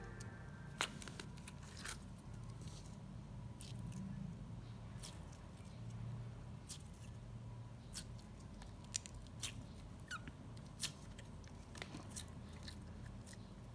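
Faint, scattered small clicks and sticky crackles of clear slime being handled and pulled. The slime is still stiff and not yet stretchy. A steady low hum runs underneath.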